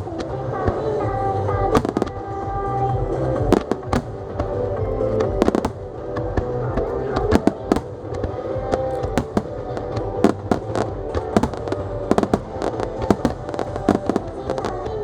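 Firework shells bursting in quick, irregular bangs and crackles over music played for a creative fireworks display set to music; the bangs come thicker in the second half.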